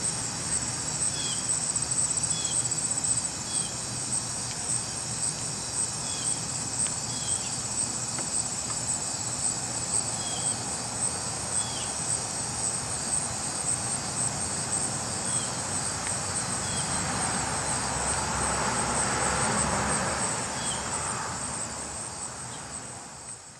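Steady high-pitched insect chorus, a fine pulsing trill, with short chirps every second or two. A broad swell of rushing noise rises about three-quarters of the way through, and the sound fades out at the end.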